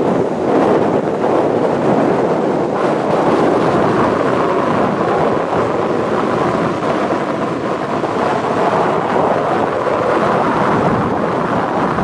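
Storm surf breaking and washing up over a sandy beach, mixed with strong wind buffeting the microphone: a loud, steady rushing noise.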